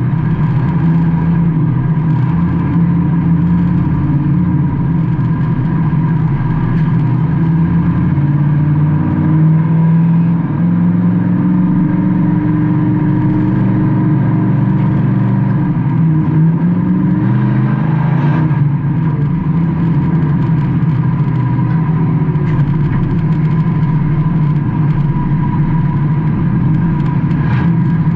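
Race car engine heard from inside the car at racing speed, its pitch dipping and climbing again twice as the driver lifts and gets back on the throttle, with a steady high whine running underneath.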